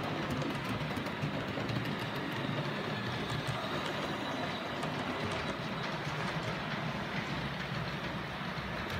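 OO gauge model trains running on the layout: a steady hum from the locomotive motors, with light, irregular clicking of the wheels on the rails.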